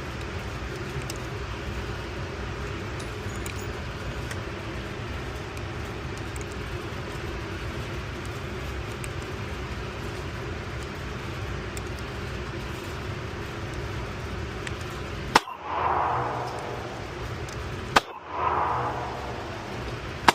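A steady low background rumble, then two sharp gunshots about two and a half seconds apart near the end, each followed by a brief ringing tail.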